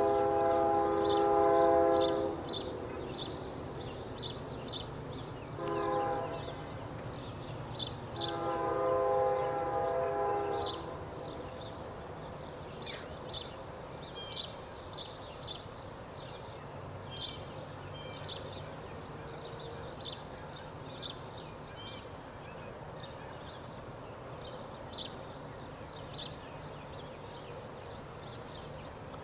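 Distant diesel locomotive air horn on CN 2627, a GE C44-9W, sounding the end of a grade-crossing signal: a long blast, a short one, then a long blast ending about eleven seconds in, over a low rumble of the approaching train. Birds chirp repeatedly throughout.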